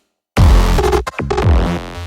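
Electronic intro music with a heavy bass that drops in pitch. It starts abruptly after a brief gap of silence.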